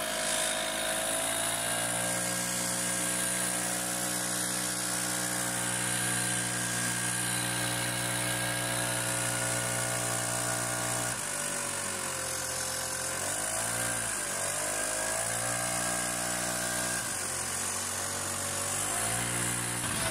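An engine running steadily. Its pitch drops about eleven seconds in, rises and falls a few times soon after, then settles again.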